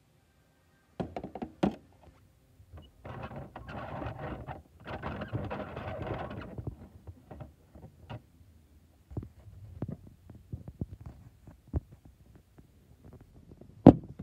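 Handling noise from a plastic toy garbage truck and the phone filming it: scattered clicks and knocks, a few seconds of rustling in the middle, and one sharp knock near the end.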